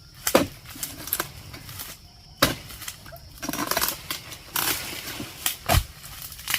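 Three sharp chopping strikes of a palm-harvesting blade cutting into oil palm frond and bunch stalks, with rustling and crackling of dry palm fronds between the strikes.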